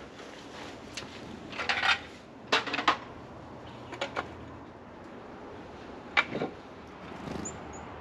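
Scattered knocks and clatter of lumber and tools being handled during wooden framing work, with a cluster of rattling knocks about two to three seconds in and a single sharp knock about six seconds in.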